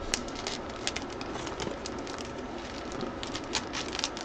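Clear plastic bag crinkling and rustling as it is handled: an irregular run of small crackles and clicks.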